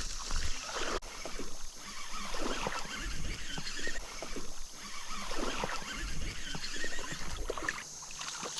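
Water splashing and sloshing in irregular bursts as a hooked smallmouth bass thrashes at the surface during the fight.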